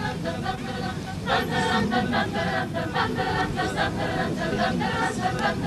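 Mixed-voice choir singing a cappella, a passage of short, rhythmic notes that grows louder about a second in.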